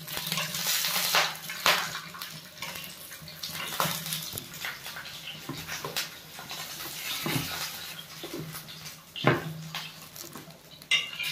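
Cooking utensil scraping and knocking against a frying pan as fried chicken feet are lifted out, irregular clatters with the loudest about nine seconds in.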